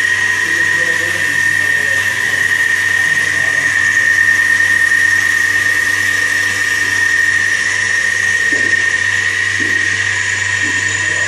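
Pipeline milking machine's vacuum pump running steadily: an even, high-pitched whine over a low hum.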